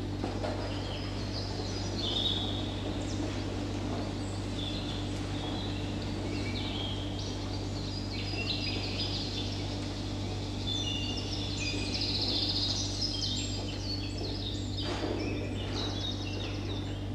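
Birdsong sound effect: many short chirps and quick trills over a steady low electrical hum, with the chirping busiest in the second half.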